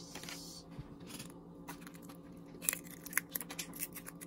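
A raw egg being cracked and its shell pulled apart over a bowl: a brief rustle, then a few sharp cracks and clicks, the loudest about three seconds in, over a faint steady hum.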